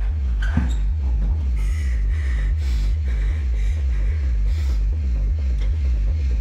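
Low pulsing bass drone of a suspense film score, throbbing in an even rapid rhythm. A sharp breathy gasp comes about half a second in, and a few breathy sounds follow.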